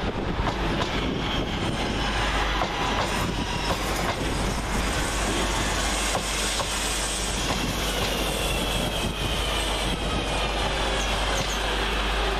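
Class 323 electric multiple unit running past on the track: a steady rumble with wheel clicks over the rail joints, and a high electric whine that falls in pitch through the second half.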